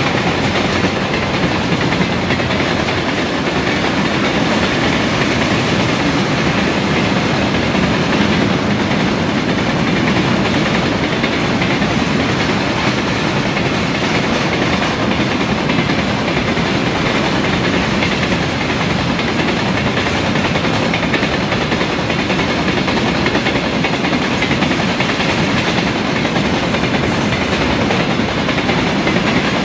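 Freight train of rail tank cars rolling past, the steady noise of its wheels running on the rails with a clickety-clack over the rail joints.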